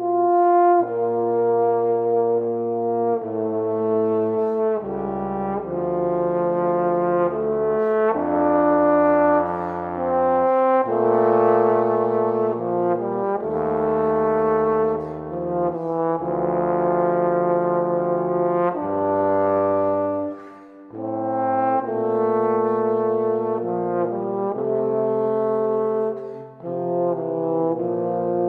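Two bass trombones with piano playing a slow, lyrical piece in sustained chords. The low trombone notes reach deep into the bass range, and the phrases break briefly twice in the second half.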